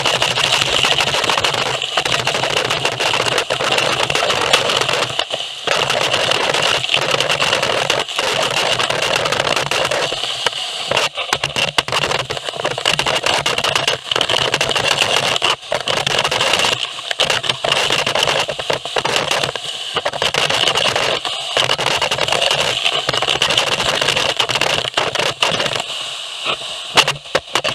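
Gutter vacuum sucking through its nozzle: a steady rushing hiss with a high whine, broken by crackling and rattling as moss and debris are drawn into the hose. The sound keeps cutting out for moments, more often in the second half.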